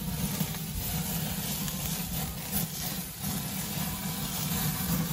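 Charcoal fire flaring in a kamado grill under rotisserie chicken: a steady low rumble with light crackling.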